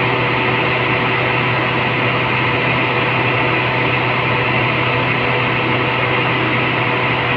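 Steady hum and hiss of running machinery, such as the pumps and motors of a plant room, unchanging throughout.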